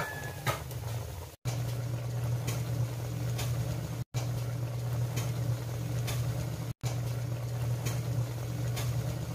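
Chicken adobo in soy sauce and vinegar boiling hard in a wok, its sauce reducing down: a steady low rumble with small pops, broken off for an instant three times.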